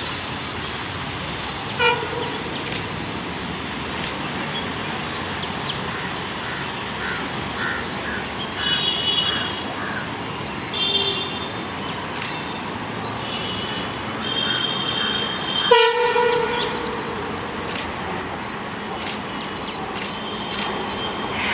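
WDM-3A ALCo diesel locomotive approaching with its engine running steadily, sounding its horn with a short toot about two seconds in and a longer, louder blast at about sixteen seconds.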